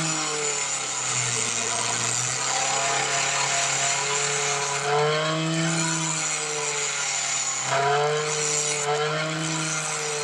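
Homemade bench grinder driven by a blender motor, its abrasive wheel grinding a metal bar: a motor whine whose pitch sags and recovers as the bar is pressed in, over a hissing grind.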